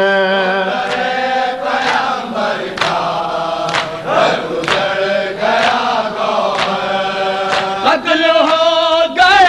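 Male voices chanting a Shia noha lament together in long held lines, with sharp chest-beating strikes of matam landing about once a second.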